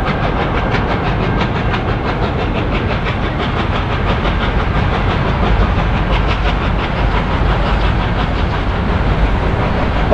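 Victorian Railways R class steam locomotive R707 approaching with its train, exhaust beating in a quick, even rhythm over a heavy low rumble.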